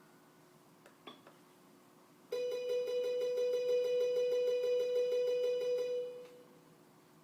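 KORG tinyPIANO toy digital piano playing a single note struck rapidly and repeatedly for about three and a half seconds, starting about two seconds in, as an imitation of a Seoul subway signal sound. A couple of soft clicks come before it.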